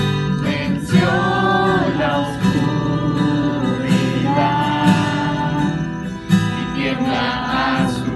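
Christian worship song: singing voices over a steady acoustic guitar accompaniment.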